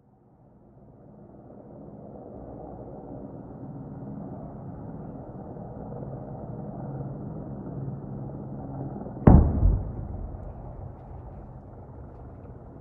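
An avalanche-control explosive charge detonating on the snow slope: a single sharp boom about nine seconds in, with a low rumble trailing off for about a second. Under it runs a steady low hum.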